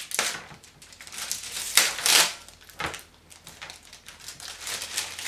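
Clear plastic wrapping around a computer speaker crinkling and rustling as it is handled, in irregular bursts, the loudest about two seconds in.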